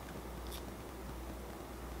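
Low steady hum and faint hiss of room tone, with one faint small click about half a second in.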